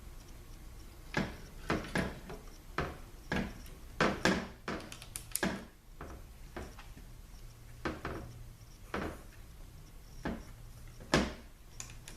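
Irregular knocks and clicks of metal parts being handled and set down, about a dozen, as a Ford 6R80 transmission valve body is set in place; the loudest knocks come about four seconds in and near the end.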